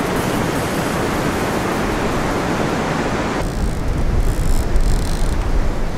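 Steady rush of surf on the beach with wind on the microphone. About three and a half seconds in the sound changes abruptly: the hiss drops away and a low wind rumble takes over.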